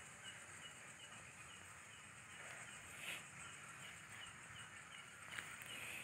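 Quiet night ambience: an insect chirps faintly and steadily a few times a second, with a faint brief rustle about three seconds in.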